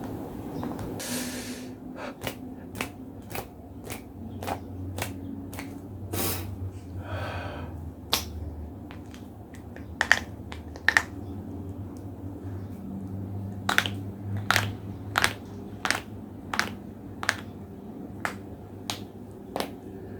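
Joints cracking over and over, a run of sharp pops. Later they come in a steady rhythm of about one every two-thirds of a second, with a couple of short rustles between.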